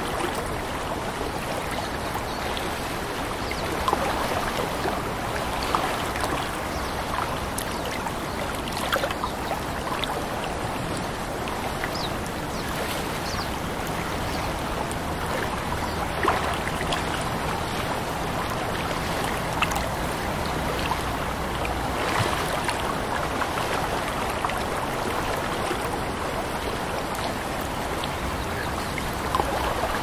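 Lake water lapping and splashing gently: a steady wash dotted with many small, irregular splashes.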